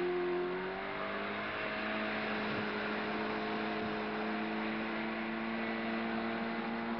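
Motorboat engine revving up as the boat pulls a water skier out of the water, its pitch rising over the first second or so and then holding steady at speed.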